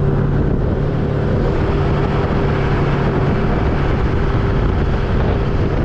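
Vehicle driving down the road at about 35 mph: a steady engine drone with tyre and road noise, no change in speed.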